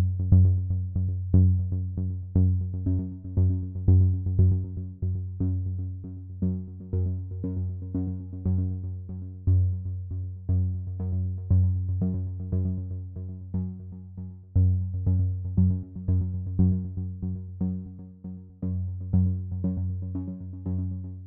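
Background electronic music: synthesizer notes struck in a regular rhythm over a steady bass.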